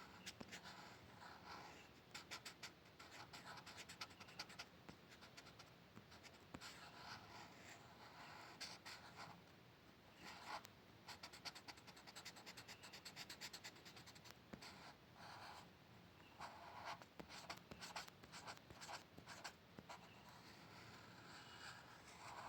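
Faint pencil strokes scratching on paper, in quick runs of short strokes with brief pauses between them.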